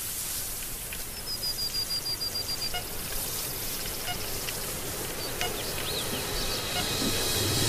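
Underwater ambience picked up by an action camera in its waterproof housing: a steady muffled hiss with scattered small clicks. About a second in comes a quick run of short high pips, and a few more faint pips and chirps follow.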